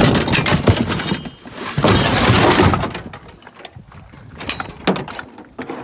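Clattering and scraping of scrap being loaded into a pickup truck bed: two loud rattling, scraping stretches in the first three seconds, then lighter knocks.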